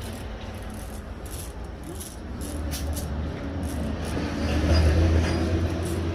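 A motor vehicle's engine rumbling low and steady, growing louder about four seconds in, then easing slightly.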